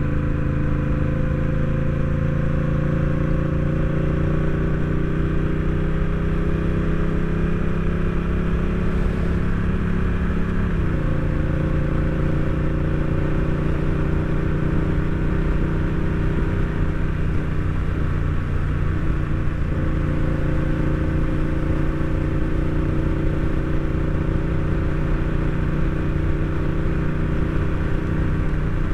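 Honda Rebel 1100 DCT's parallel-twin engine under way, its pitch slowly rising as the bike gathers speed, then dropping suddenly about eleven seconds in as the dual-clutch gearbox shifts up by itself; afterwards it runs at a nearly steady pitch.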